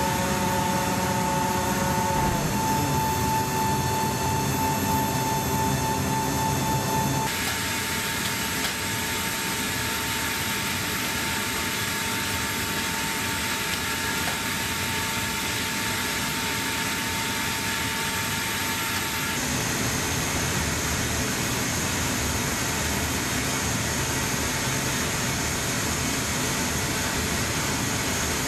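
Steady hum and whine of a C-17 Globemaster III's on-board systems running on the ground, heard inside the cargo hold, with a high steady tone over a noisy rush. The tones change abruptly about two, seven and nineteen seconds in.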